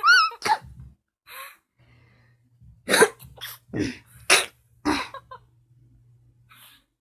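A person sneezing several times in a row, in sharp sudden bursts clustered around the middle, after a short high-pitched squeak at the start.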